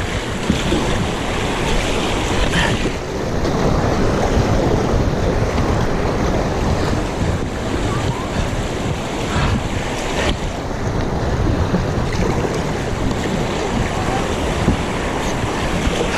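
Steady rush of river whitewater, with wind buffeting the camera microphone.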